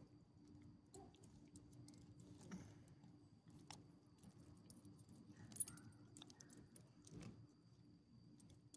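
Near silence with faint jingling and light clicks from a dog's collar and metal leash clip as the dog moves about, one sharper click about five and a half seconds in.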